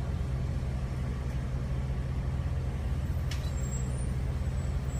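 Concrete mixer truck's diesel engine running steadily with a low drone. There is a single sharp click a little over three seconds in.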